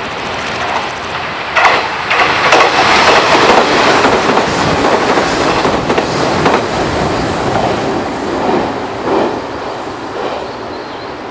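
183 series electric limited express train passing close by, its wheels clattering over the rail joints. The clatter starts sharply about a second and a half in, is loudest through the middle and fades as the train runs on.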